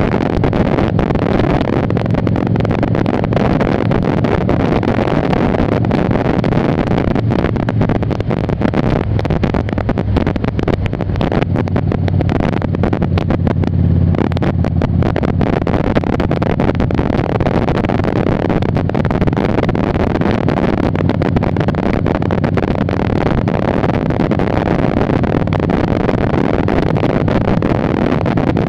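Heavy wind noise on the microphone over the steady low rumble of a 2002 Harley-Davidson Ultra Classic's V-twin engine under way at road speed.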